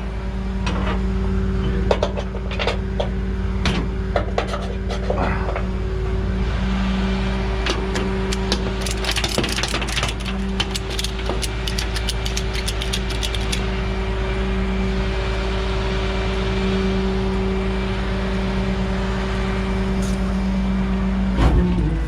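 Truck engine running steadily with a low hum, with rattling clicks over it that come thickest about eight to thirteen seconds in. Near the end the engine's pitch shifts.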